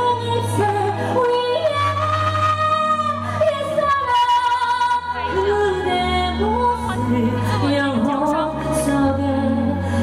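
A woman singing into a hand microphone over a backing accompaniment, amplified through a PA. She holds long notes and slides between pitches over a sustained bass line that moves every second or two.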